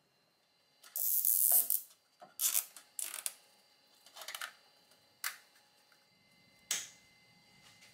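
Plastic zip ties being pulled tight around wiring connectors: six short rasping zips, the first and longest about a second in.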